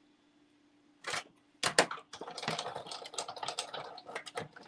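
Irregular clicks, taps and rustles of paper craft pieces and supplies being handled on a desk, starting about a second in.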